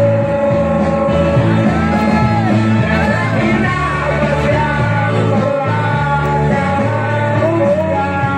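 A man singing into a microphone over amplified band music, the melody held and sliding over a steady bass line.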